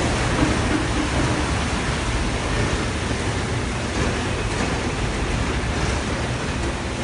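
Steady rushing noise of flowing floodwater.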